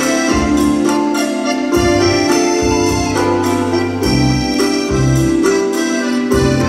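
Instrumental backing track: a keyboard melody over a bass line and a steady beat.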